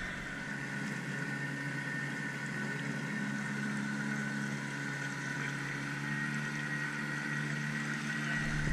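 Small Tohatsu outboard motor running steadily at cruising speed, an even hum with a few steady tones, with water rushing along the kayak's hull.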